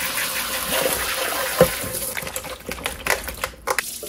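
Kitchen sink spray head running onto mushrooms in a bowl, a steady hiss with a sharp knock about one and a half seconds in. After about two seconds the spray gives way to irregular splashing as the bowl of rinse water is tipped and emptied into the sink.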